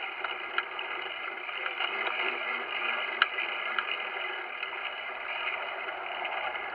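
Steady whirring rush of Razor MX500 electric dirt bikes being ridden, electric motor and chain drive with tyre noise, with a sharp click about three seconds in.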